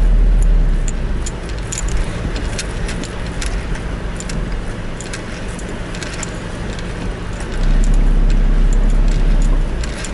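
Car driving slowly on wet beach sand, heard from inside: steady engine and tyre noise, with many light scattered ticks and rattles. A deep low rumble swells for about two seconds near the end.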